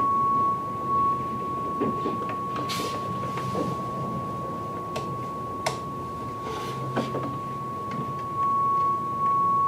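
Test tone from the Shure M267 mixer's built-in oscillator: one steady pitch that drops in level about a second in and comes back up near the end as the mixer's knobs are turned, with faint clicks of handling the controls.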